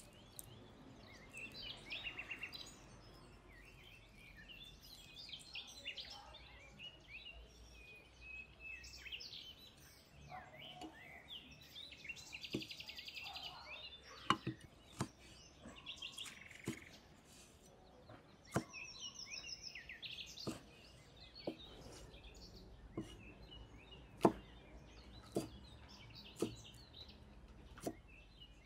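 Small birds chirping throughout. From about halfway, sharp knocks of a cleaver striking a wooden chopping board come roughly once a second as red chillies are cut.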